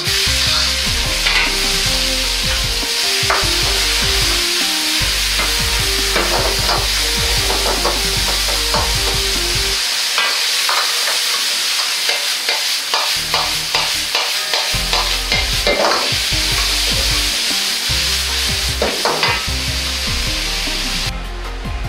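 Chicken and bamboo shoots sizzling hard in a hot oiled wok as they are tipped in at the start and stir-fried, with a metal ladle repeatedly scraping and clanking against the wok.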